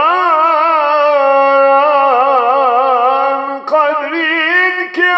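A man singing a Turkish ilahi (religious hymn) solo, in long held notes with ornamented, wavering pitch, pausing briefly for breath just before four seconds in.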